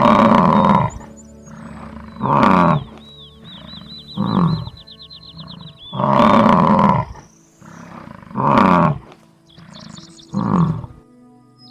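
A large animal gives six loud, deep calls about two seconds apart, each falling in pitch. High chirping trills run faintly behind them.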